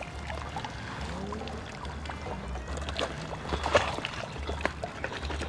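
Background music with a low beat pulsing about once a second, under scattered small clicks.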